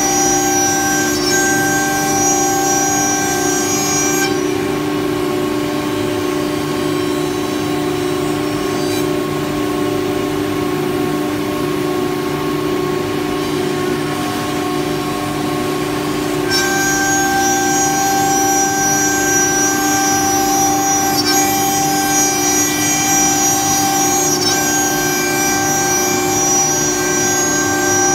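CNC router's air-cooled HSD spindle cutting grooves into white-faced panels: a steady machine hum with a high whine and the noise of the cutting. The higher whine drops away about four seconds in and returns past the halfway point.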